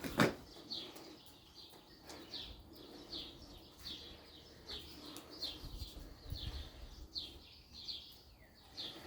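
A small bird chirping over and over, short falling notes at about two a second, with one sharp knock just after the start.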